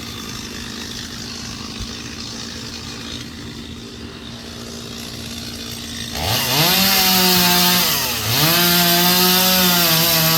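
A steady low rumble, then about six seconds in a chainsaw starts, revs up quickly and runs at high speed. It drops off briefly about two seconds later, then revs back up and holds, as if cutting.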